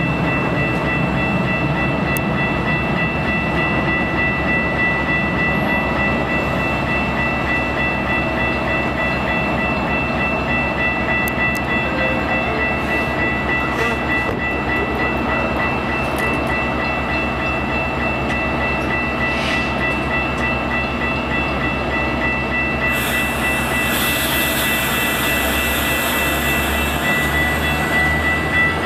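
Metra bilevel commuter train standing at the platform: a steady low rumble with a thin high whine held throughout. About 23 seconds in a loud hiss of air starts, and near the end the cars begin to roll.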